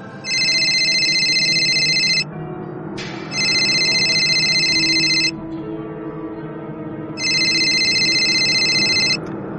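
Telephone ringing: three rings of about two seconds each with short gaps between, over soft background music.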